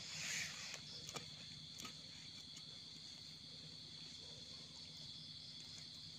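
Steady high chorus of night crickets. A brief rustle just as it begins and a few soft clicks over the next two seconds come from a knife and fingers working in damp soil.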